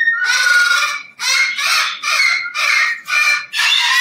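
A parrot screaming: a run of about seven loud, harsh screams, roughly two a second, the first one held for about a second.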